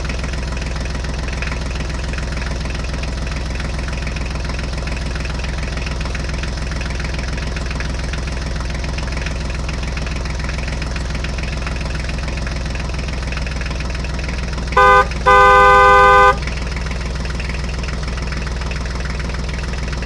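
A truck engine runs with a steady low drone. About fifteen seconds in, a horn honks twice: a short toot and then a longer blast.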